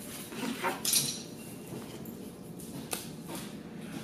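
Plastic parts of a water-fed pole brush and gooseneck adapter being handled on a paper-covered table: a brief rustle about a second in, then a few light clicks and knocks.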